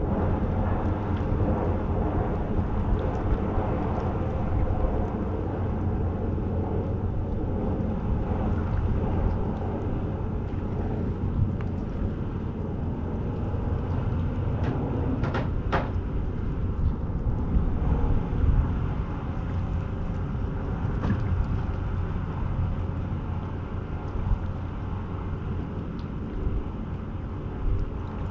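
Steady low rumble of wind buffeting the microphone in the open air over the sea, with a couple of sharp clicks about halfway through.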